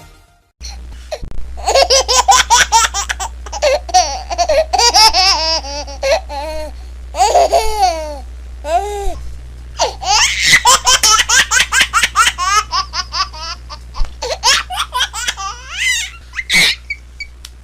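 A baby laughing hard: long runs of quick, high-pitched laugh pulses broken by short pauses for breath, over a low steady hum.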